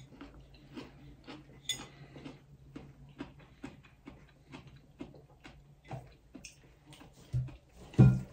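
A person eating at a table: quiet, irregular clicks and taps from the meal, with one louder knock near the end, over a low steady hum.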